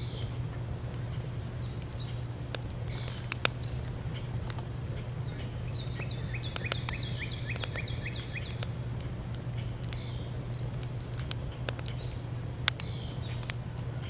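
Small birds chirping outdoors. About midway one bird gives a rapid trill of short falling notes lasting some three seconds. All of it sits over a steady low hum, with a few sharp ticks.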